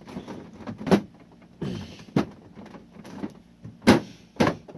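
Plastic water bucket of a 2008 Amana dehumidifier being forced back into its slot: scraping and four sharp plastic clunks, the loudest nearly four seconds in. The bucket does not slide back in easily, which the owner calls a pain.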